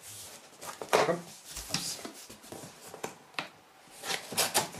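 Cardboard box being cut open with a knife and its flaps pulled back: scraping and rustling of cardboard with a few sharp cracks, the loudest about a second in and a cluster near the end.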